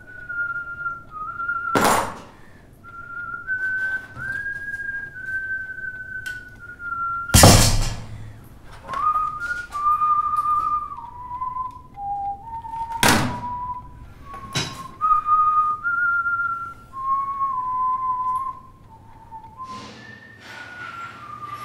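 A person whistling a slow, wavering tune, one clear note at a time stepping up and down. Four sharp thunks break in, the loudest about seven and a half seconds in.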